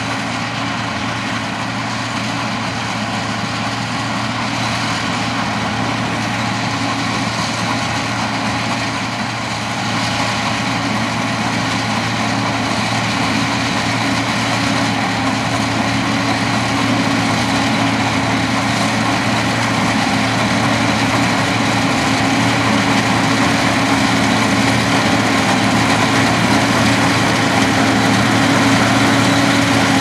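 Sugarcane harvester working a cane row: a steady diesel engine drone with the chopping and elevator noise, together with the truck running alongside being loaded, growing gradually louder.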